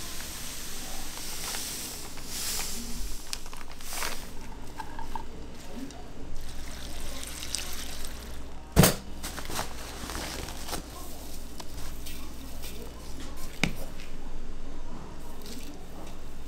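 Clear liquid poured from a plastic bottle onto a heap of julienned radish in a large steel bowl, trickling and splashing, with small clicks and one sharp knock a little before halfway.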